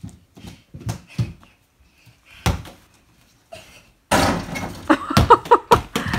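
A small ball thumping on a wooden floor a few times, then a loud crash about four seconds in as it hits an over-the-door mini basketball hoop, rattling the backboard and the closet doors it hangs on. A few quick bounces and a short voice follow near the end.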